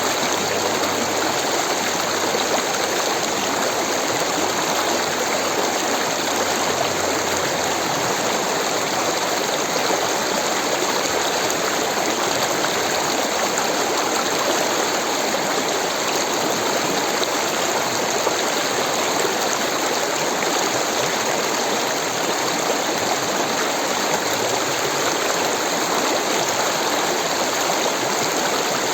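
Rushing water of a stream or small waterfall, a steady, unbroken wash of noise.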